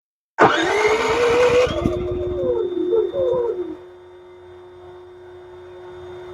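Genmax GM7250iEDC dual-fuel inverter generator's 312 cc four-stroke engine on propane, cranked by its electric starter and catching, its pitch rising, then wavering; about three and a half seconds in it drops away to a much quieter sound that stops near the end. A first start attempt that does not keep running, after which the generator is meant to retry by itself.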